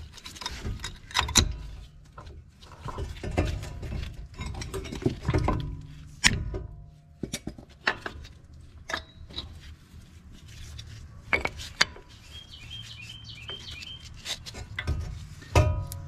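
Irregular metallic clicks, clinks and knocks as new brake pads and their steel shims and clips are handled and seated in a car's front brake caliper bracket.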